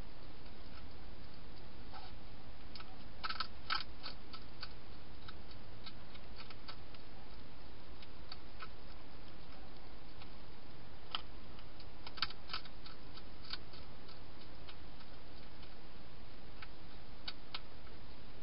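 A European hedgehog crunching dry food inside a plastic feeding box: sharp clicks come in short clusters a few seconds apart over a steady hiss.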